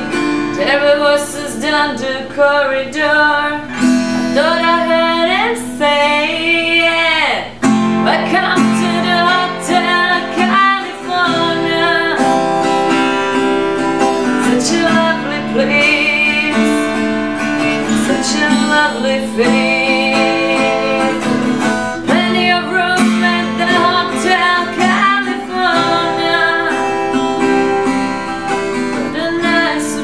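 A woman singing while playing a Seagull Entourage Grand parlor acoustic guitar, a continuous song.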